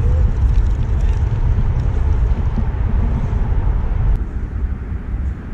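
Wind buffeting the microphone: a loud, steady low rumble that eases slightly near the end.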